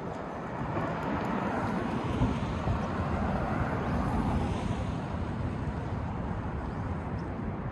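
City street traffic noise: a steady rumble of vehicles, swelling in the middle as a vehicle passes, then easing back.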